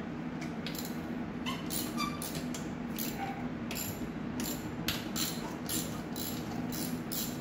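Socket ratchet clicking in short runs as the manifold nuts are undone, the runs coming closer together in the second half, over a steady low hum.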